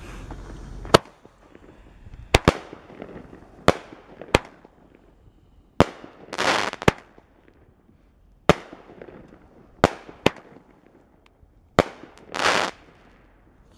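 A six-shot 200 g firework cake (Dominator 'RPG') firing: sharp bangs, mostly in pairs of launch and break, come about every one to one and a half seconds after a second of steady rustling. Two of the shots end in a brief, noisier hissing burst.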